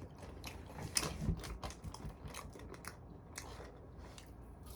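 A person chewing food close to the microphone: a quiet, irregular run of small clicks and crunches.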